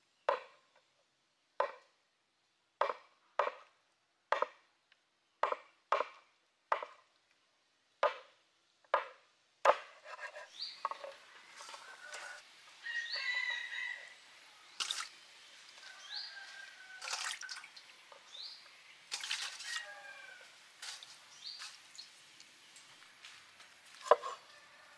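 A cleaver chopping on a wooden cutting board: about a dozen single sharp chops, roughly one a second, for the first ten seconds. Then comes a busier, quieter stretch of knocks and handling with short high chirps, and a few more chops, one near the end.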